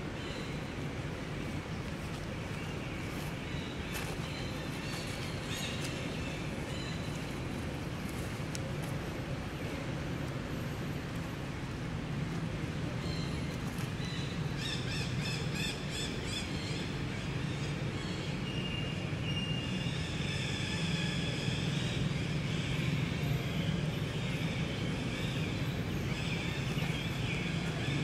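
Outdoor ambience: a steady low rumble throughout, with short, high, repeated chirping calls that grow busier from about halfway through.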